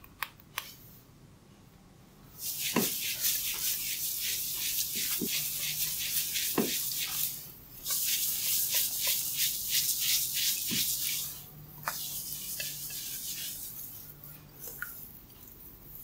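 Hair cracking during a head massage: strands of hair twisted and rubbed between the fingers close to the microphone, making dense rapid crackling. Two long runs of crackling a couple of seconds in, with a brief break between them, then softer, sparser crackles near the end.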